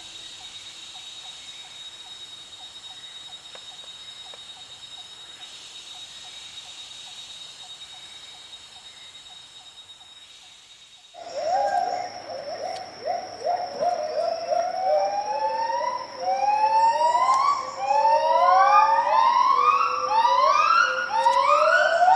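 A faint, steady high tone for the first eleven seconds. Then gibbons break into song: loud rising whooping notes, one after another, coming faster and overlapping as the call builds.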